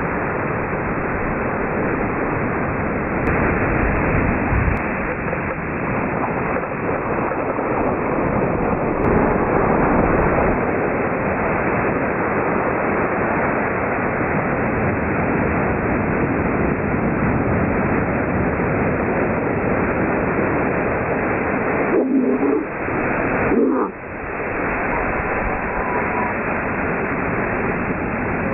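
Ocean surf breaking and washing up a sandy beach, a steady rush of water noise mixed with wind on the microphone, briefly dropping away about three quarters of the way through.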